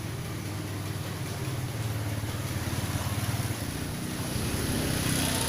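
An engine running steadily with a low, rapidly pulsing rumble.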